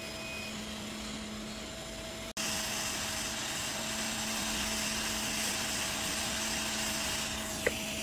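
Hot air rework gun blowing a steady hiss of air onto a MacBook logic board's processor, heating the solder around the chip to lift it. A low hum runs under it. The blowing is louder from about two seconds in, and there is a single sharp click near the end.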